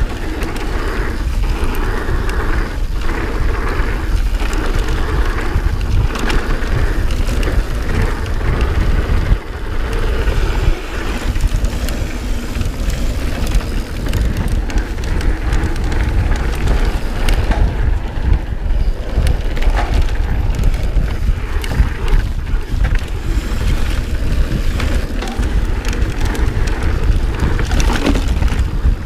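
Mountain bike rolling fast downhill on a dirt and gravel trail: tyres crunching over the surface and the bike rattling with many small knocks, under heavy wind buffeting on the microphone.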